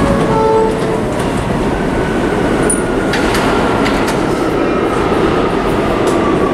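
A New York City subway train, R160 stock, standing at the platform with the steady noise of its running equipment. About half a second in, a short two-tone chime sounds, and the doors slide shut, with a few clicks a few seconds in.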